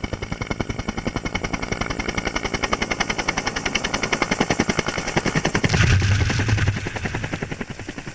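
Helicopter flying in low overhead, its rotor blades chopping in a fast, even rhythm. About six seconds in, a louder low rush of rotor wash hits the microphone.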